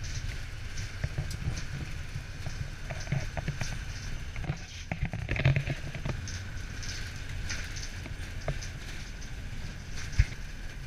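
Riding inside a school bus: a steady low engine and road rumble with a hiss, and frequent small rattles and clicks from the bus body and seats, with one sharp knock near the end.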